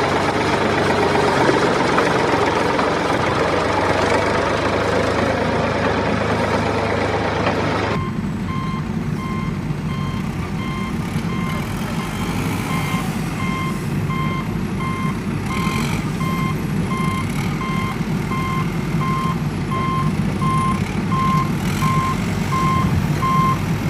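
Heavy machine's diesel engine running steadily. About eight seconds in it cuts to a reversing alarm beeping at an even pace over engine rumble.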